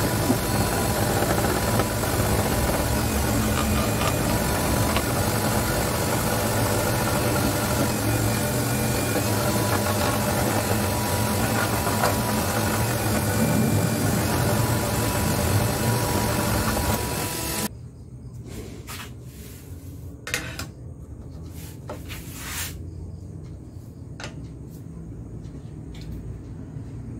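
Scroll saw running steadily as its blade cuts through acrylic sheet; the noise stops abruptly about two-thirds of the way through. After that, a quiet hum remains with a few sharp clicks and knocks.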